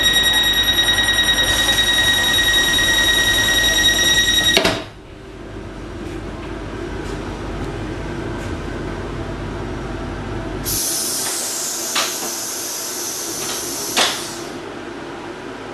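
Train door-closing warning tone sounding steadily, then cutting off with a thump about four and a half seconds in as the door shuts. Later comes a hiss lasting about four seconds, with two sharp clicks.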